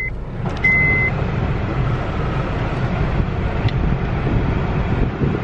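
Steady rushing noise inside a running car's cabin. The car's warning chime beeps once, for about half a second, near the start.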